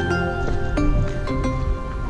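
Instrumental background music: a slow melody of separate notes, each starting sharply and ringing on.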